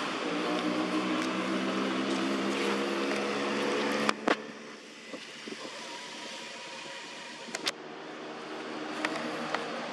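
Motor vehicle engine running on a nearby road, a steady hum that fades away about four seconds in, right after two sharp clicks. A fainter engine sound builds again near the end as more vehicles approach.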